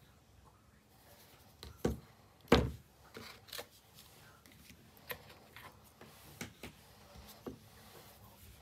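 Unboxing handling sounds from an iPhone box and its contents: two knocks of the phone and cardboard pieces against the desk about two seconds in, the second the loudest, then lighter taps and rustles of the paper wrap and the documentation pack.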